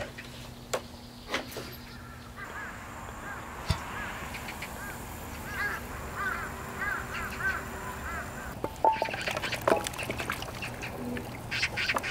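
Short, high-pitched animal calls in quick runs of rising-and-falling cries over a faint steady background, with a few sharp knocks near the end.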